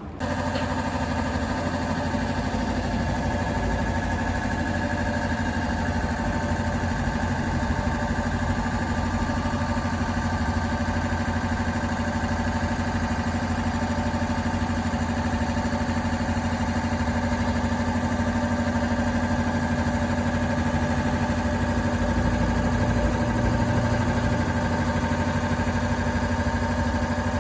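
Air-cooled Volkswagen Beetle flat-four engine idling steadily.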